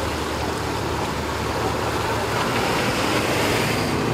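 An engine idling steadily, a low even hum under a wash of outdoor noise.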